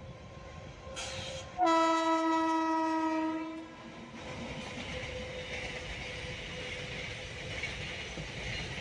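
Train horn sounding one long blast of about two seconds, starting a little under two seconds in, just after a short hiss. A steady train rumble follows as the train runs on.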